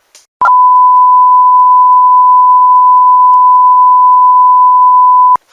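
A single loud, steady electronic beep on one pure pitch, lasting about five seconds and starting and stopping abruptly.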